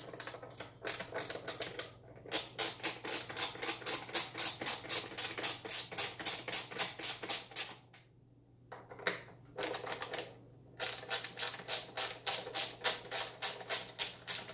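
Ratcheting hand screwdriver with a T20 bit clicking as bolts are backed out, in fast even runs of about five or six clicks a second with short breaks between runs.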